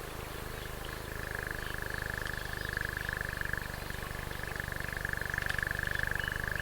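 A home-made foley sound effect: a steady, rapidly pulsing low drone with a high whine held above it. It runs evenly and cuts off just after the end.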